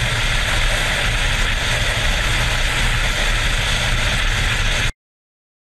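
Motorcycle riding at speed on a wet highway: steady wind rush and road noise on the rider's camera microphone, with heavy low-end buffeting. It cuts off abruptly near the end.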